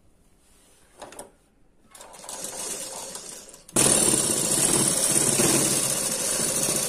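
Meena sewing machine stitching a cloth hem. There is a single click about a second in. The machine starts slowly about two seconds in, then jumps to a louder, steady full-speed run just before four seconds in.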